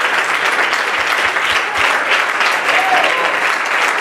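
Congregation applauding steadily in a church hall.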